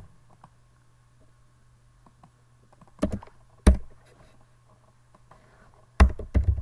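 A few sharp clicks from a computer keyboard and mouse: one about three seconds in, a louder one just after, and a quick cluster near the end, over a faint steady low hum.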